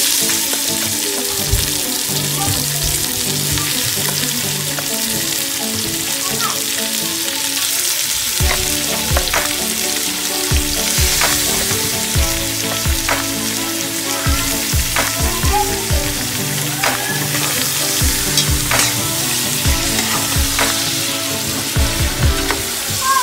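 Pork pieces sizzling in hot oil in an aluminium pot, stirred and turned with a spatula that clicks and scrapes against the pot now and then.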